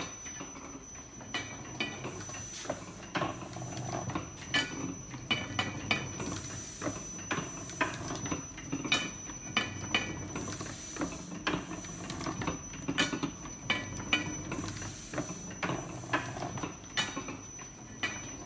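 Chandler & Price platen press running, its rollers and platen clacking and clicking in a repeating cycle, with a hiss that comes back about every four seconds over a thin steady high whine.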